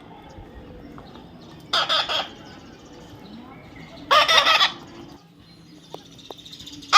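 Parrot squawking: two short harsh calls, about two seconds in and again about four seconds in.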